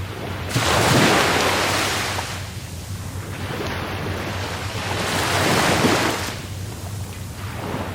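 Rough sea surf: two waves break and wash in, the first about half a second in and the second about four and a half seconds in, over a steady low rumble.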